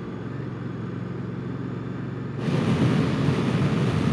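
Moto Guzzi V100 Mandello's 1042 cc transverse V-twin running under acceleration, heard from the rider's seat. A little past halfway it turns sharply louder, with a strong rush of wind noise over the engine.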